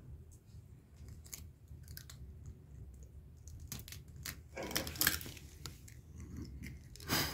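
Eggshells cracking and crunching as eggs are broken open by hand over a bowl of flour, with small clicks along the way and the loudest crackle about five seconds in.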